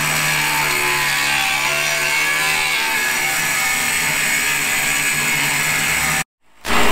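Cordless DeWalt angle grinder cutting through aluminium angle with a thin cutting disc: a steady grinding whine. It drops out briefly near the end, then starts again.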